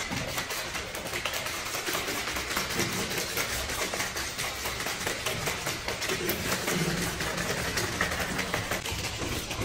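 Cola sloshing in a plastic soda bottle that is being shaken hard and fast without a break, a continuous rapid swishing.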